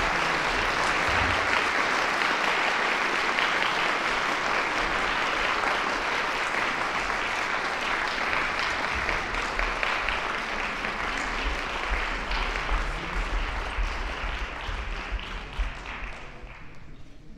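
Audience applauding, a dense steady clapping that thins out over the last few seconds and dies away just before the end.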